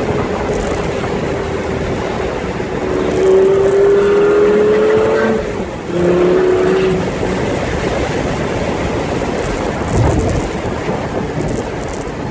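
Lamborghini Gallardo V10 engine heard from inside the cabin while driving gently, its new engine still being run in. The engine note rises twice, with a short dip in between, over steady road and tyre noise.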